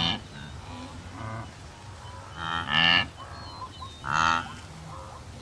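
Repeated short animal calls, four in about five seconds, each a brief pitched cry with a lowing quality.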